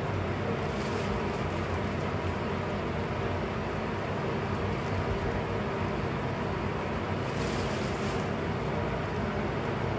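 Steady drone of bed bug heat-treatment equipment running, heaters and air-circulating fans, with a low, even hum.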